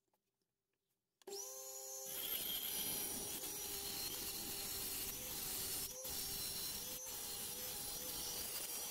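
Small benchtop table saw starting about a second in, its motor whining steadily, then its blade cutting along a wooden panel as the panel is fed through.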